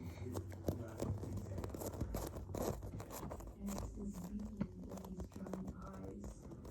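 A fidget toy handled close to the microphone: irregular crackling, crunching and scraping, many small clicks in quick succession.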